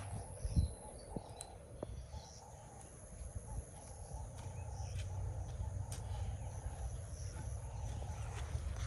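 Outdoor rural ambience: faint bird calls over a steady low rumble, with a few light knocks, the sharpest about half a second in.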